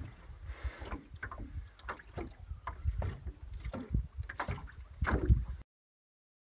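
Irregular water splashing and knocking over a low wind rumble on the microphone, cutting off suddenly near the end.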